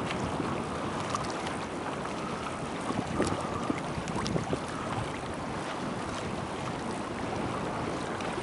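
Strong gusty wind buffeting the microphone, with harbour water lapping and splashing against the quay and small scattered clicks throughout.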